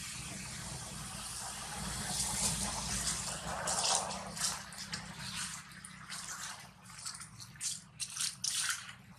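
Dry leaf litter rustling and crackling: a steady hiss at first, then from about halfway a run of short, scratchy crackles.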